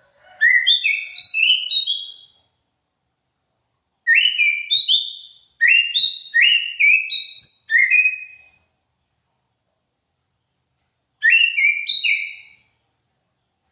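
Greater racket-tailed drongo singing: short phrases of quick, rising whistled notes, with silent pauses between them. The longest pause falls shortly before the end.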